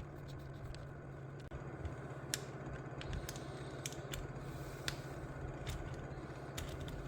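Scattered small metal clicks and ticks as bolts are backed out of an RC truck's transmission case with a hand tool, over a steady low hum.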